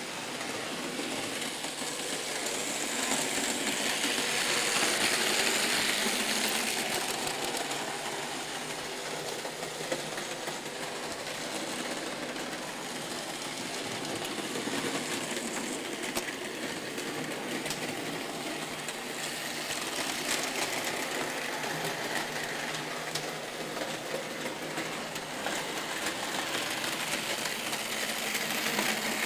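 Märklin model trains running on the layout: a steady small electric-motor whir with wheels clicking along the rails, swelling louder a few seconds in and again past the middle as a train passes close.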